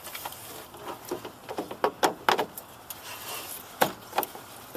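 A series of sharp plastic clicks and knocks from hands handling a turn-signal bulb socket and lamp housing, with a cluster about two seconds in and a couple more near the end.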